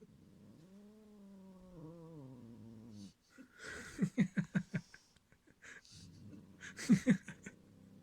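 A domestic cat's low, drawn-out threat growl that wavers and sinks in pitch, the warning growl of a cat guarding its toy from another cat. Midway and again near the end come louder clusters of quick, breathy pulses.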